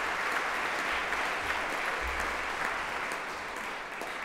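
Audience clapping steadily, easing off near the end.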